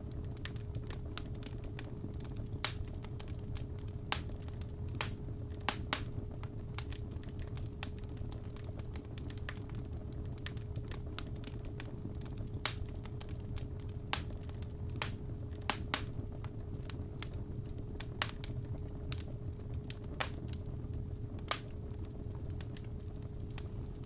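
Wood fire in a fireplace crackling, with irregular sharp pops over a low steady rumble, under a steady 417 Hz sine tone that holds the whole way.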